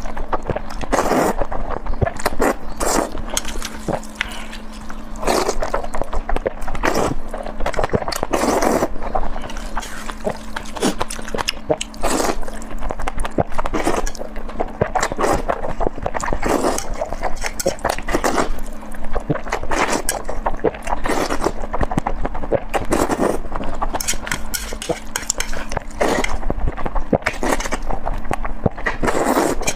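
Close-miked eating: irregular wet chewing, smacking and crunching mouth sounds, dense and continuous, over a faint steady hum.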